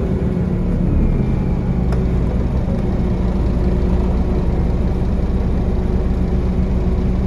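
Scania CN230UD OmniCity double-decker bus engine, a nine-litre five-cylinder diesel, running at a steady pace, heard from inside the bus near the rear. A faint click sounds about two seconds in.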